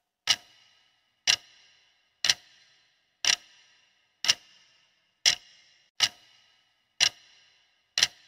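Countdown timer sound effect: a clock tick once a second, each one a sharp click with a short ringing tail.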